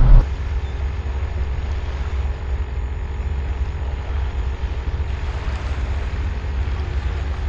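Wind buffeting the microphone, a steady, uneven low rumble, with a faint steady hum underneath.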